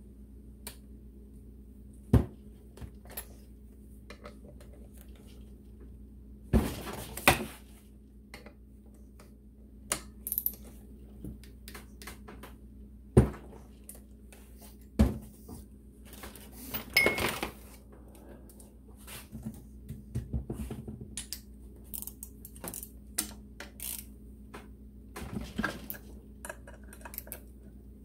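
Wrenches and steel bolts clinking and clattering as the flywheel bolts of a Moto Guzzi V-twin engine are worked loose: irregular sharp metallic clinks, several close together around seven seconds in and again after about nineteen seconds, over a steady low hum.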